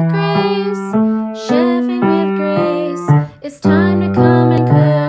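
Theme music with a piano-like keyboard playing a tune in short held chords that change about every half second, with a brief break a little after three seconds.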